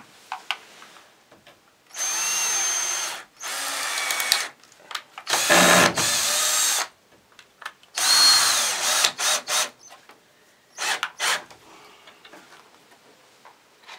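Cordless drill working into wooden pallet boards, its motor whining in four runs of about a second each, the loudest about halfway through. A couple of short blips of the trigger follow near the end.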